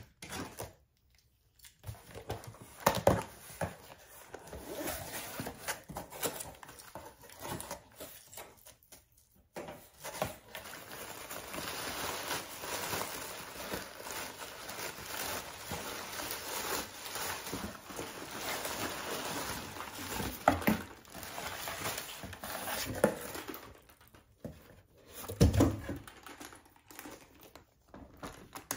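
Cardboard shipping box being opened: a box cutter scraping through packing tape, flaps pulled open, then a long stretch of white packing paper crinkling and rustling as hands dig through it, and a low thump near the end.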